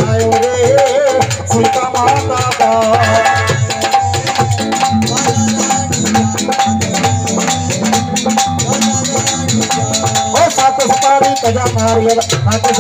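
Live Punjabi devotional folk music: drums and rattling percussion keep a fast, steady beat under a wavering melody.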